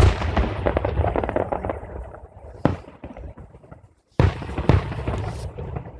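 Fireworks bursting overhead: a sudden loud bang followed by several seconds of dense, fading crackle, a single sharp bang a little before three seconds, then another bang with crackling about four seconds in.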